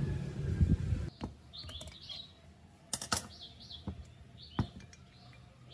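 Clicks and light knocks of an old air compressor's metal cylinder parts being handled as the head comes off and the piston is worked out of the bore, with louder handling noise in the first second. Small birds chirp in the background.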